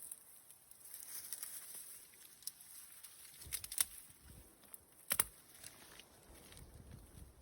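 Light rain falling, a faint steady patter and hiss, with a few sharp clicks and soft low thuds, the loudest clicks a little over halfway through.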